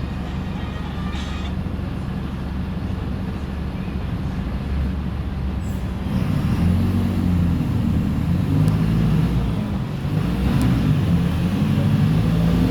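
Mercedes-Benz OF-1418 bus's diesel engine running steadily, then louder from about six seconds in as it pulls, its pitch rising and dipping.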